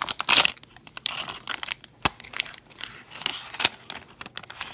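A small foil booster pack being torn open, with a loud rip near the start followed by crinkling of the wrapper and scattered small clicks and rustles.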